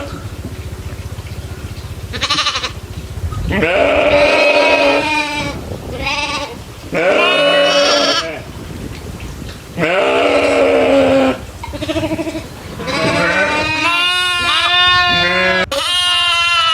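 Goats bleating over and over, about six calls, several over a second long, the later ones wavering in pitch.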